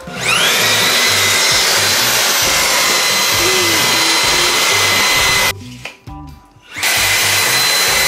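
Dreame V11 cordless stick vacuum, used handheld with a crevice nozzle, running with a steady high whine. Its motor spins up with a rising pitch, cuts off about five and a half seconds in, and spins up again just over a second later.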